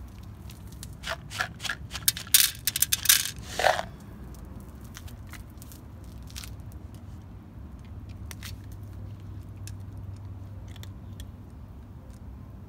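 Dry cat kibble poured onto a clear plastic lid: a quick rattling cluster of clicks for about three seconds, starting about a second in. After that a cat crunches the kibble with faint, scattered clicks over a low steady hum.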